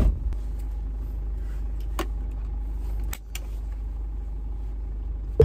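Inside a car: a steady low engine rumble, a thump at the start, and a few sharp clicks as a seatbelt is pulled across and fastened.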